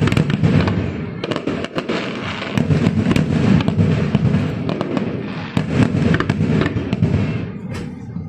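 A fireworks display going off: many bangs and crackles in quick succession over a continuous rumble, thinning out slightly near the end.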